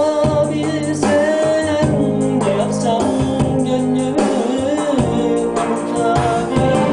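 Yamaha A1000 arranger keyboard playing a melody with sliding, ornamented lead notes over held chords and bass.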